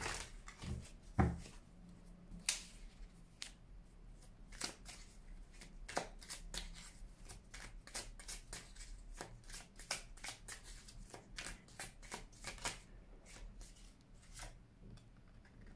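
Tarot deck being shuffled by hand: a long run of light, irregular card flicks and slaps, with a heavier thump about a second in.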